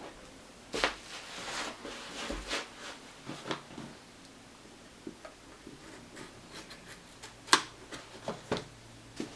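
Hands handling smartphone packaging and accessories: rustling with scattered light clicks and taps, one sharp click about seven and a half seconds in.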